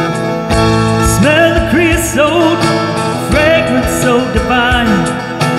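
A man singing a slow country-style ballad with vibrato over steadily strummed guitar chords; his voice comes in about a second in and holds long notes.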